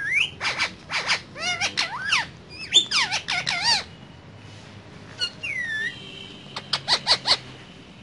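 Indian ringneck parakeet calling: a quick run of high chattering calls that swoop up and down in pitch, a single falling whistle about five seconds in, then a burst of sharp short chirps near the end.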